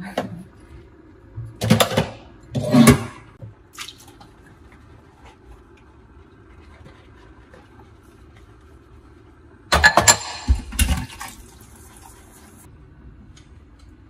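Liquid splashing and dripping as homemade cereal milk is wrung through a cloth straining bag into a pot, in a few short loud bursts with the longest about ten seconds in, over a low steady hum.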